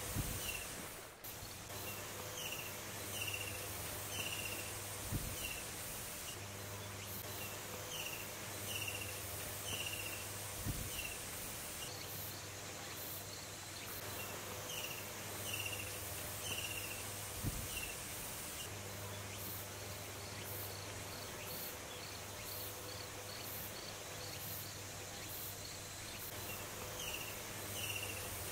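Outdoor chorus of insects buzzing steadily, with short high chirps repeating in pairs and small groups, and a few soft low thumps.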